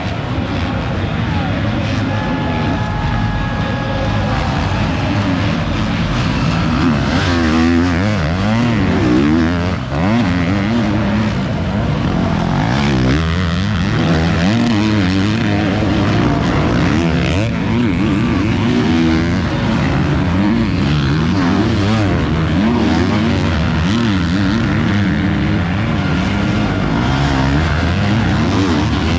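Several motocross bikes racing on the track, their engines revving up and down, several at once.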